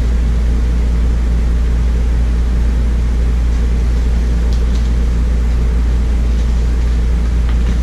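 Steady low mechanical hum, unchanging throughout, with a few faint ticks about halfway through as the paperback picture book is handled.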